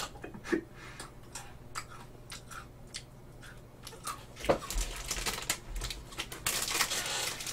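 A plastic snack wrapper being handled: a sharp crackle about four and a half seconds in, then continuous crinkling and rustling to the end. Before that, only faint scattered small clicks.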